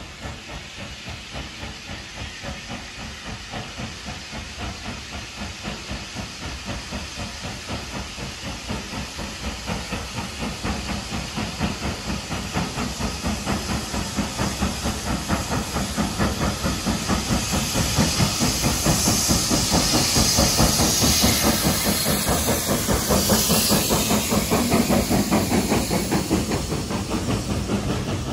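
Steam locomotive working, its exhaust beats coming fast and even over a hiss of steam. It grows steadily louder as it approaches and is loudest about three quarters of the way through.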